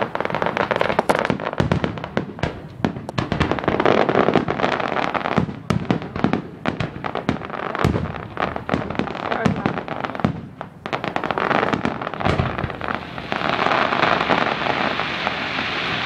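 Fireworks display: a fast, dense run of bangs, pops and crackles from bursting aerial shells. In the last few seconds a steadier rushing noise sets in under the bangs.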